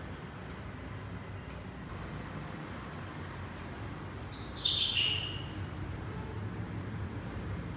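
A young pet monkey gives one loud, high-pitched squeal about four and a half seconds in, sliding sharply down in pitch within under a second, over low steady background noise.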